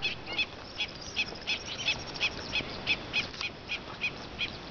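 Bird calling in a fast series of short, high, sharp notes, about three a second, over faint outdoor background.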